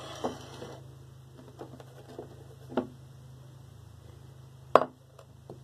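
Small ceramic plates and a candle being handled on a countertop: a few light knocks, with one sharper knock a little before the end, over a steady low hum.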